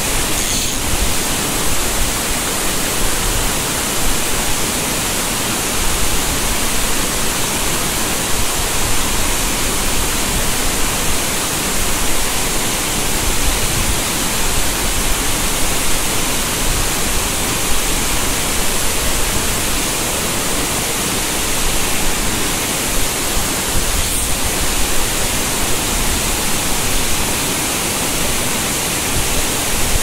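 Mountain stream water rushing steadily over rocks, an unbroken hiss that holds at the same level throughout.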